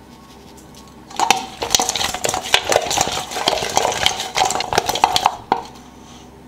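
Chicken wings being tossed in a stainless steel bowl: the shaken bowl rattles and rings as the wings tumble and knock against its sides. It starts about a second in and stops about five and a half seconds in.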